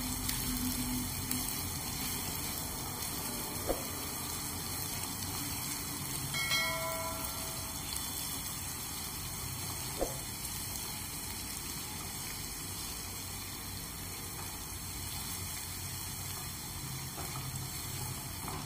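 Chopped onion sizzling steadily in hot oil in a nonstick kadhai as it is sautéed and stirred with a silicone spatula, with two sharp knocks of the spatula on the pan. A brief ringing chime sounds about six and a half seconds in.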